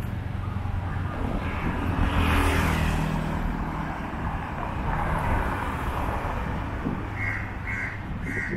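Motorcycles and cars passing on a town street: a steady engine hum that swells twice, around two and five seconds in, as vehicles go by. Near the end come three short, evenly spaced high calls.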